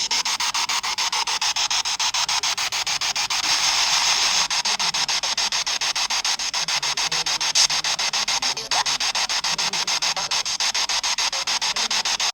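Spirit box sweeping through radio frequencies: loud, steady radio static chopped into short pulses several times a second as it scans from station to station.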